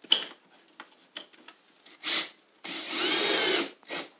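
Cordless drill driving a short drywall screw into a plastic toolbox. There is a short spin about two seconds in, then a steady run of about a second as the screw goes in, and a brief spin near the end.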